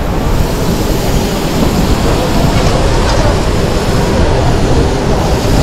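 Steady, loud roar of a commercial kitchen line: ventilation hood and gas burners running, with a couple of faint clinks about halfway through.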